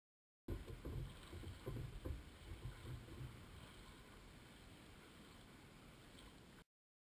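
Wind buffeting the microphone over the lapping of choppy lake water at a dock, gusty for the first few seconds and then steadier. It starts abruptly about half a second in and cuts off abruptly near the end.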